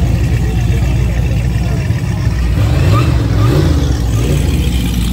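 Car engine running loudly, revving up and down briefly about three seconds in.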